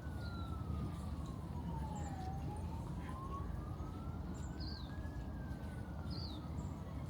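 Emergency-vehicle siren in a slow wail, its single tone falling and rising over about five seconds, over a steady low rumble. A bird gives short, high, falling chirps three times.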